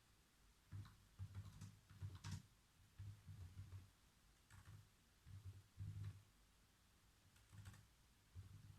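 Computer keyboard typing, quiet, in short irregular runs of keystrokes separated by brief pauses.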